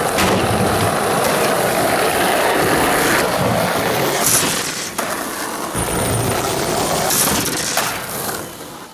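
Skateboard wheels rolling on street pavement with a steady rumble, broken a few times by sharp clacks of the board.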